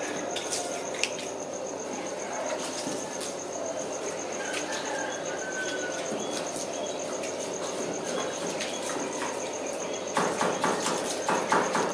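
Water poured from a bucket splashing over a pig carcass onto a concrete floor, with a steady pulsed insect trill in the background; a quick run of sharper splashes comes near the end.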